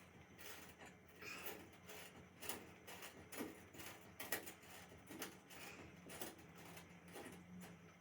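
Faint, irregular clicks and light knocks, about one a second, from hand tools and metal hardware being handled while hooks for a clothesline are fitted.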